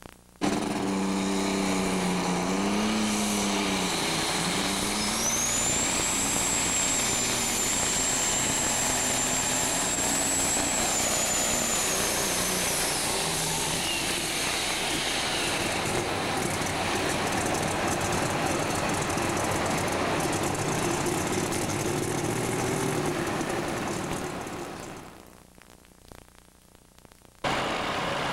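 Super stock pulling tractor's turbocharged diesel engine running at full power as it pulls the sled, with a high whistle over the engine for several seconds; the sound fades out a few seconds before the end.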